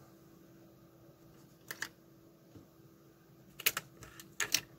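Small clicks and taps from hands handling electronic parts and tools on a workbench. A pair of clicks comes near two seconds in, then clusters of sharper clicks in the last second and a half.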